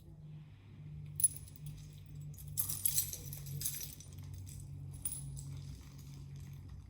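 Small hard objects clinking and rattling as they are handled: a sharp click about a second in, a burst of jangling rattles around the middle, then a few lighter clicks, over a steady low hum.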